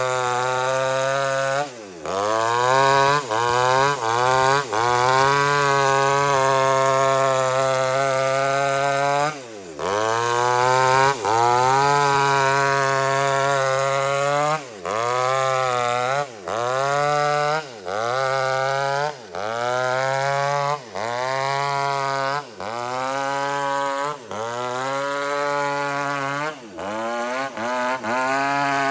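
Chainsaw running near full throttle while ripping an old teak log lengthwise. Its engine pitch sags and recovers under load, with a brief dip in sound roughly every second and a half as the throttle is eased and squeezed again.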